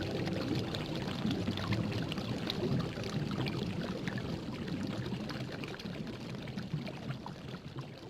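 A pot of chicken soup at a rolling boil: dense bubbling and popping of the broth, slowly fading toward the end.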